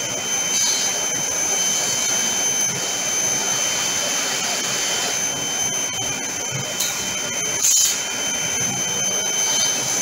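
Elam industrial vacuum's 2 hp three-phase motor and blower running steadily with a high whine. A short, louder burst of noise comes near the end.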